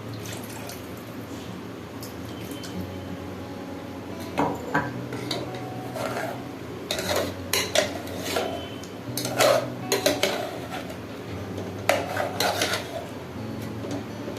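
Metal spoon clinking and scraping against a metal cooking pot, a run of irregular knocks starting about four seconds in, while chicken curry is being worked in the pot.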